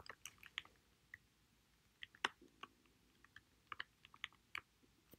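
Faint, irregular keystrokes on a computer keyboard: about twenty short clicks, some in quick pairs and small clusters, with gaps of near silence between them.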